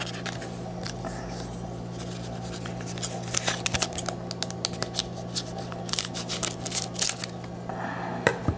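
Foil trading-card pack crinkling and crackling in short scattered bursts as it is handled and torn open, busiest in the second half, over a steady low hum.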